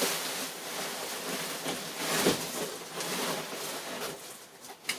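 Rustling and crinkling of a roll of foil-faced bubble insulation and its plastic wrapping being handled, with a dull thump a little over two seconds in.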